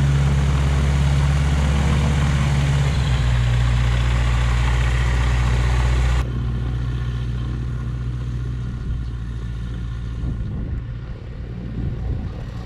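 Small aircraft engine running steadily with a deep, even hum. About six seconds in, the sound cuts abruptly to a quieter, duller engine hum.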